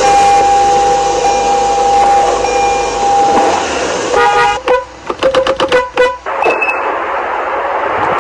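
Car horns honking: a long, steady two-tone blast of about three and a half seconds, a short blast, then a quick string of about six short toots. After that, an even noise with no horn for the last two seconds.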